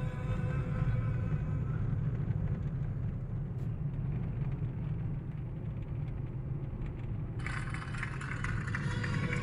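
Steady low rumble of a car's engine and tyres heard from inside the cabin while driving. Music fades out at the start, and new music comes in abruptly near the end.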